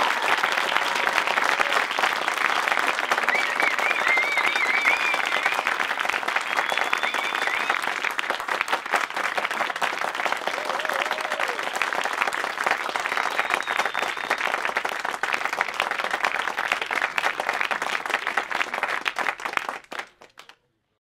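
Audience applauding steadily with a few cheers. The applause cuts off abruptly about twenty seconds in.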